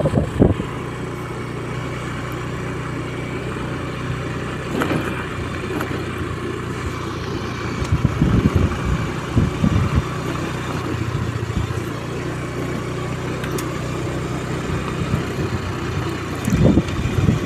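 Motorcycle engine running steadily while riding, with wind noise and a few louder rumbles around the middle and near the end.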